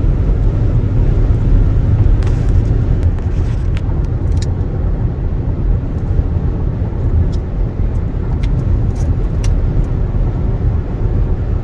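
Road noise inside a moving car: a steady low rumble of tyres and engine at highway speed, with a few faint clicks.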